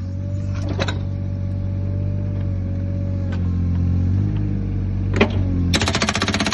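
Mini excavator's diesel engine running steadily with a hydraulic whine, with a couple of single knocks. Near the end a hydraulic breaker starts hammering rapidly on brick masonry, many blows a second.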